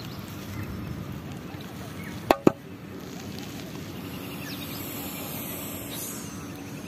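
Steady outdoor background noise with a faint low hum, broken a little over two seconds in by two sharp clicks about a quarter of a second apart.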